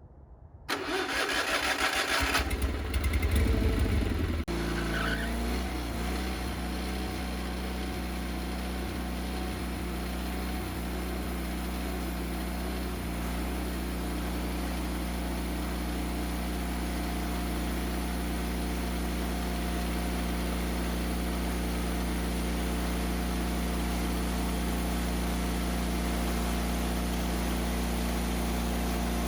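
The Woodmizer LT40 sawmill's gas engine cranking for a few seconds and catching about four and a half seconds in, then running steadily, just refuelled after running out of gas.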